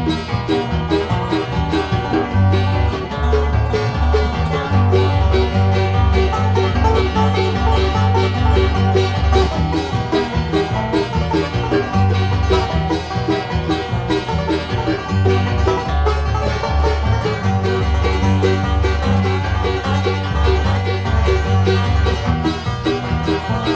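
Recorded bluegrass instrumental: a five-string banjo picks rapid rolls over guitar and a stepping bass line.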